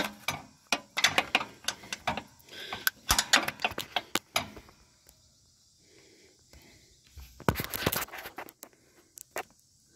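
An open-end wrench clinking and knocking against a mower's steering bracket bolt and the steel around it: a quick run of sharp metal clicks for the first few seconds, then a brief scraping rub near the end. The bolt head sits behind the body's sheet metal, so the wrench cannot get onto it.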